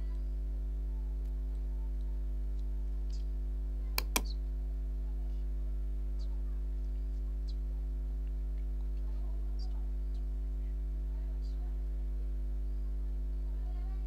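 Steady low electrical hum, with two sharp clicks close together about four seconds in.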